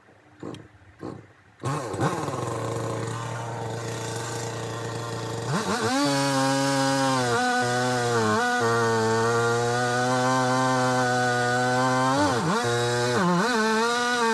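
Two-stroke chainsaw started with two pulls of the starter cord, catching about a second and a half in and idling. About six seconds in it is run up to full throttle for a first cut with a new chain, its pitch dipping briefly a few times.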